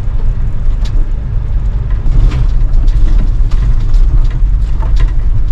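Vehicle driving: a steady low rumble with scattered short rattles and knocks.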